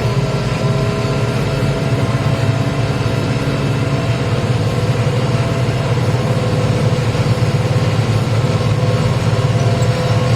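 Diesel tractor engine running steadily under load while pulling a plough through the field, with a steady higher whine over the low engine note.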